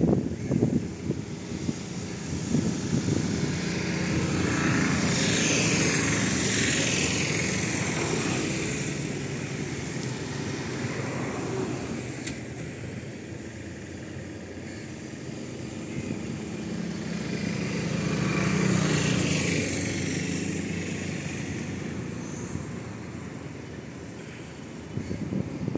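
Motor vehicles passing on a nearby road, engine hum and tyre noise swelling and fading twice, the first peaking about five seconds in and the second about nineteen.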